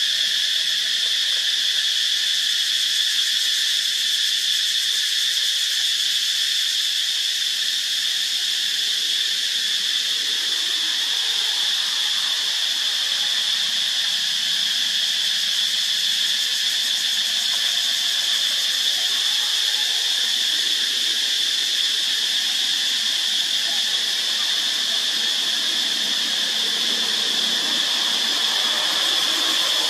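Cicadas calling in a loud, steady, high-pitched drone that never breaks.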